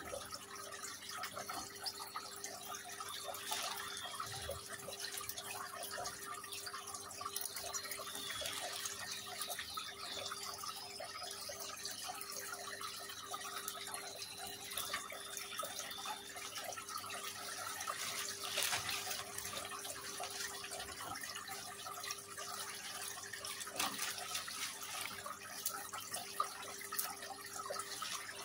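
Water trickling and dripping steadily in a small decorative rock fountain, over a steady low hum. Faint high twittering from European goldfinches comes now and then in the first half.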